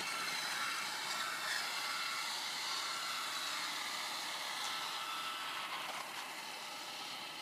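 Traxxas Slash radio-controlled truck's electric motor whining at speed as it drives and slides across ice, slowly fading as it moves away.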